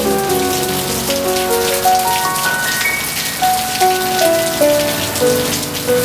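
Steady rain falling, many small drops pattering, with soft piano music over it: a run of single notes climbing in pitch over the first few seconds, then stepping back down.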